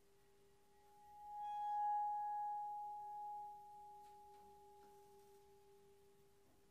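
A metal singing bowl rings with one clear tone that swells about a second in and then slowly fades, with a quieter steady lower tone beneath it and a few faint taps near the end.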